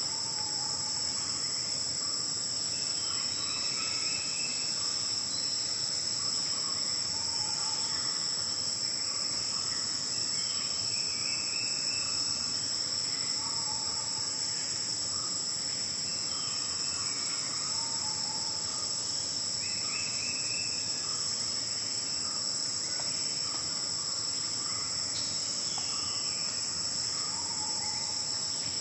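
A steady, high-pitched insect chorus droning without a break. A bird repeats a short call every few seconds.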